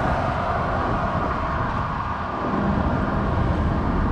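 Steady low rumble of road traffic outdoors, easing slightly about two seconds in.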